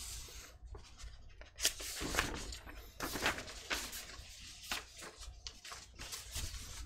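Soft, irregular clicks and rustles of a person handling things at a desk, over a steady low hum.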